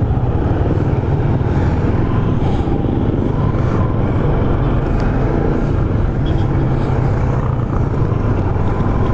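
Yamaha motorcycle's engine running steadily under way, with road noise from the ride.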